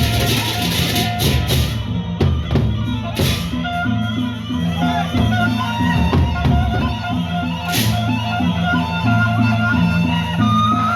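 Gendang beleq ensemble playing: large barrel drums beat a steady, busy rhythm under a high melodic line, with cymbal crashes about a second in, near three seconds and near eight seconds.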